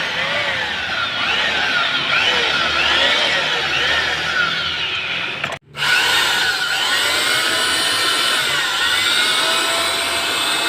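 Electric sanding machine running, its motor whine wavering up and down in pitch. The sound cuts out for an instant about halfway through, then resumes.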